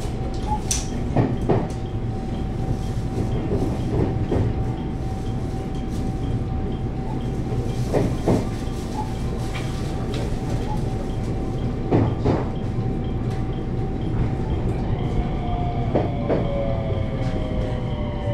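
223-series electric train running and slowing as it arrives: the wheels click over rail joints in pairs about every four seconds, over a steady rumble. From about fifteen seconds in, the electric motor whine falls in pitch as the train brakes.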